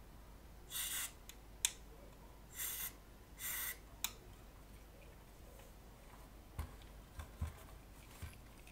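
Aerosol spray can fired in three short hisses through its thin extension straw into the potentiometers of a vintage rack effects unit, with a couple of sharp clicks between them and a few faint soft knocks later on.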